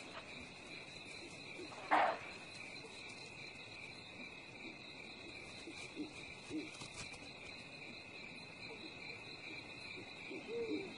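Steady night chorus of crickets with a constant high trill. About two seconds in, a single short, sharp animal call stands out as the loudest sound. A few faint, brief low calls follow later.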